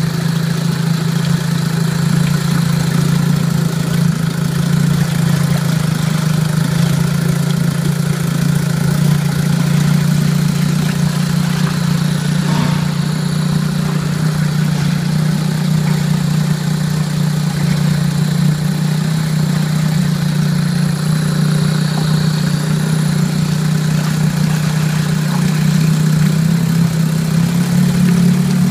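1948 Martin 40 two-stroke outboard motor, freshly tuned up, running steadily in a test tank with its propeller churning the water.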